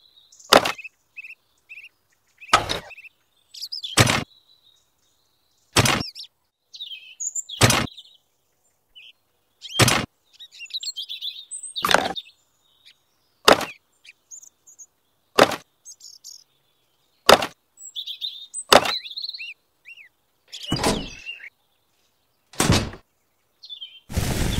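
Sharp clacks of small hard plastic pieces being set down one by one on a toy trolley bed, about one every one and a half to two seconds, over faint bird chirps. Near the end comes a steady hiss of dry sand being poured into a miniature cement mixer.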